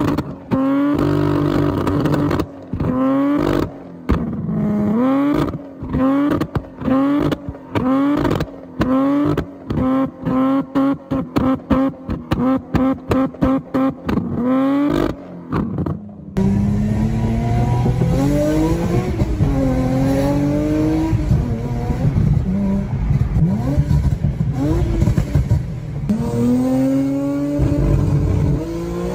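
Infiniti G37's VQ37VHR V6 through an aftermarket exhaust, revving in short bursts broken by abrupt silences. About halfway through the recording changes and the engine revs rise and fall continuously.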